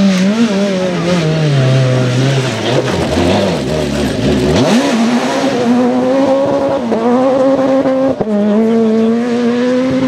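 Peugeot 207 S2000 rally car's 2.0-litre naturally aspirated straight-four at full song. The engine note falls as the car slows, then climbs again as it accelerates hard, with a short dip at a gear change. A little after the middle the note jumps abruptly to another high, steady run.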